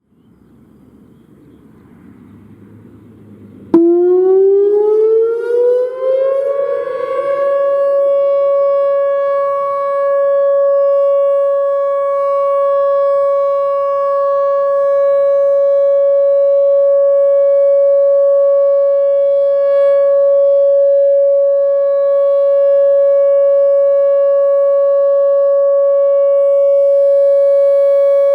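Whelen Vortex R4 electronic warning siren sounding its Alert signal. It cuts in suddenly about four seconds in, glides up in pitch over about three seconds, then holds one loud steady tone.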